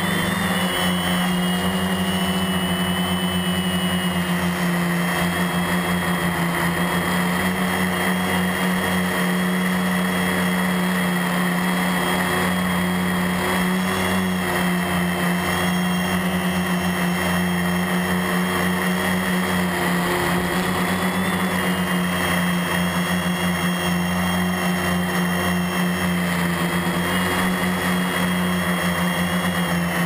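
Rotor Concept HPQ1 quadcopter's motors and propellers running steadily in flight, heard close up from the craft's onboard camera. There is a low hum with higher whines that waver slightly in pitch.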